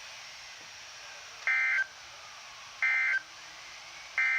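NOAA Weather Radio's EAS (SAME) digital data tones: three short identical bursts of warbling two-tone data about 1.3 s apart, the end-of-message code sent after a warning, over faint radio hiss.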